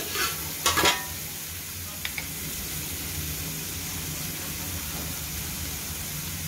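Metal spatula scraping and clinking against an aluminium wok as water spinach stems, onion and garlic are stirred, a few quick strokes in the first second, then a steady sizzle of the vegetables frying in oil.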